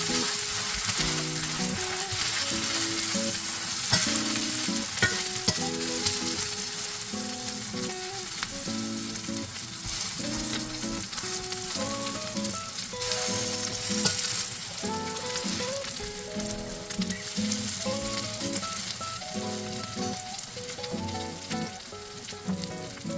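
Seafood green-onion pancake (haemul pajeon) frying in oil in a pan, sizzling steadily, with a few sharp clicks of a utensil against the pan. Quiet background music plays underneath.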